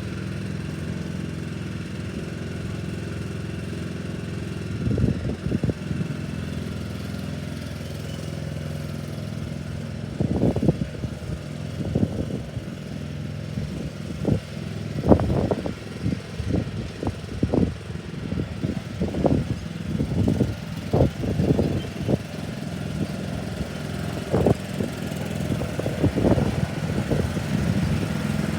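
Riding lawnmower engine running steadily, with many short, irregular low rumbling bursts coming and going over it, most of them in the second half.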